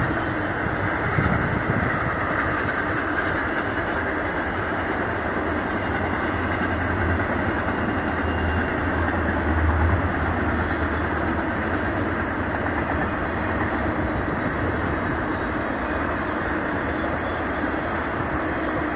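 BNSF intermodal freight train cars rolling past: a steady rumble and rush of wheels on rail, with the low rumble swelling for a few seconds midway.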